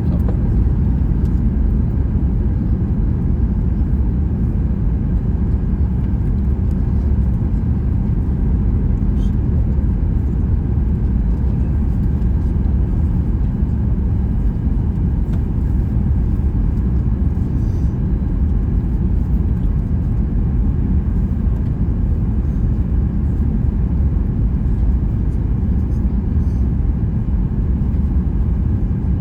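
Steady cabin noise of a Boeing 737 MAX 8 in flight: an even, loud low rumble of engines and airflow, unchanging throughout.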